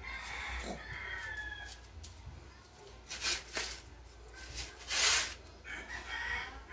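A rooster crowing in the background: one long, faint crow in the first two seconds and more faint calls near the end. In between come three short bursts of noise.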